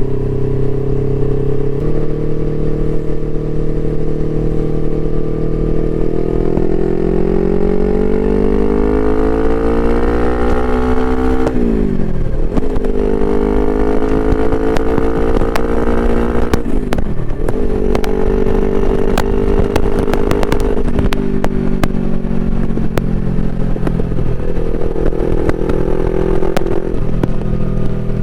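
Suzuki GS500E's air-cooled parallel-twin engine through an aftermarket Takkoni exhaust, on the move. Revs climb under acceleration, drop sharply on an upshift about halfway through, climb again, and drop on a second upshift, then the engine runs fairly steadily. A scatter of sharp crackles comes around the second shift.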